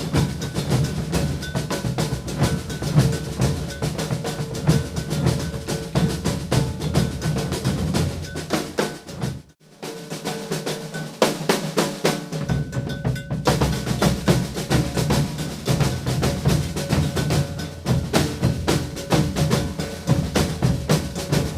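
Maracatu percussion ensemble playing a maracatu rhythm: deep alfaia bass drums, snare drums and a gonguê bell in a dense, driving pattern. About halfway through the playing breaks off for a moment and starts again, with the bass drums coming back in some three seconds later.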